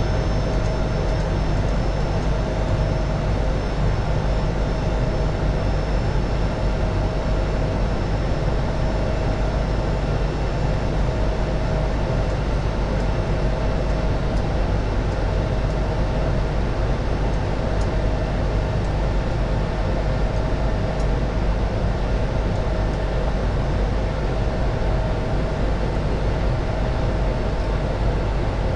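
Airbus A220 cockpit noise in the climb after takeoff: a steady rush of airflow and engine noise, heaviest in the low end, with a faint steady tone. It holds even throughout.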